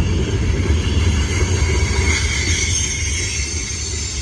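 Freight cars rolling past close by, with a steady low rumble of steel wheels on rail. A faint, high wheel squeal rises about two seconds in.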